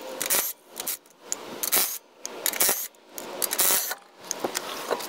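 DeWalt cordless power tool with a socket spinning lug nuts off a car wheel in about five short bursts, roughly one a second, with brief pauses as it moves from nut to nut.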